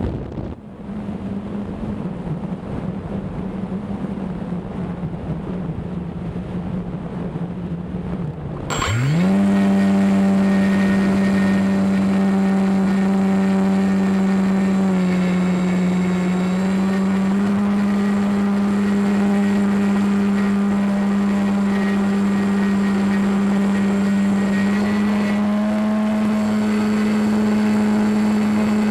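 RC plane's motor and propeller heard from the onboard camera: wind rushes past while the motor runs low or is throttled back, then about nine seconds in the motor spools up with a quick rise in pitch and runs at a steady high pitch, shifting a little as the throttle changes.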